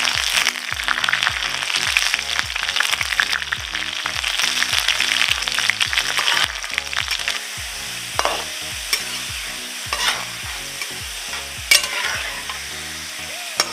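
Chopped garlic frying in hot mustard oil in an aluminium kadhai, sizzling and crackling as a metal spatula stirs it and now and then scrapes the pan. The sizzle is loudest for the first six seconds or so, then settles to a quieter fry.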